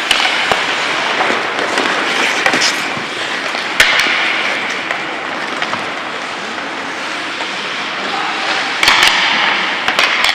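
Ice hockey play on a rink: a steady hiss of skate blades on the ice, with sharp clacks of sticks and puck, the loudest about four seconds in and several close together near the end.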